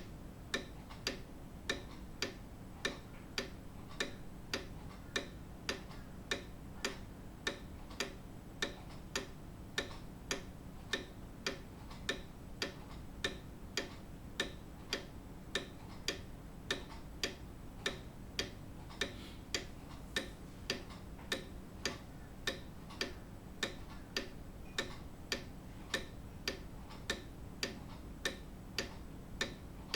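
Grandfather clock ticking with a steady, even beat of sharp clicks.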